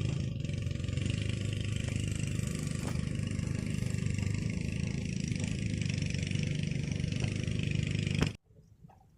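Boat engine running steadily with a low hum, which cuts off abruptly about eight seconds in.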